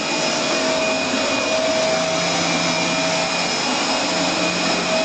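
Dyson DC24 Animal ball upright vacuum cleaner running steadily, its motor giving a constant rushing noise with a steady whine over it.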